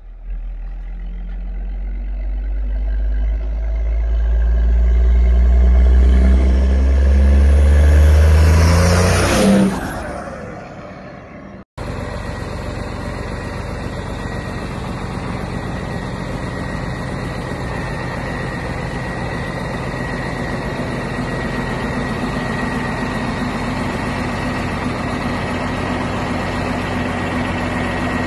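Rat rod pickup's engine pulling hard as it drives toward and past, louder for about nine seconds, then its pitch drops sharply as it goes by and fades. After a cut, a 1971 Kaiser Jeep military truck's engine idles steadily, with a thin steady whine over the idle.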